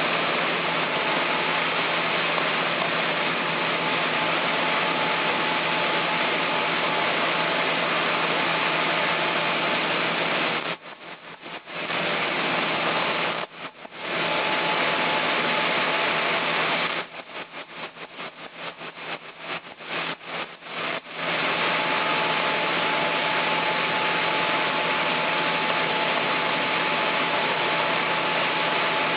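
Sawmill machinery running with a steady, loud noise and a faint steady whine. The sound cuts out briefly twice in the middle, then stutters on and off for several seconds before running steadily again.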